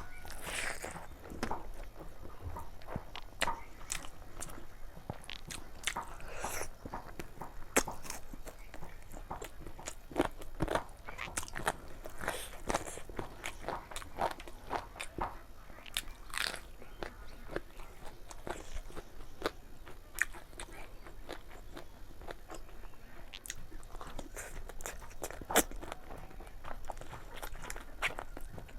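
Close-miked chewing and biting of chicken curry, with irregular crunches and wet mouth clicks and smacks.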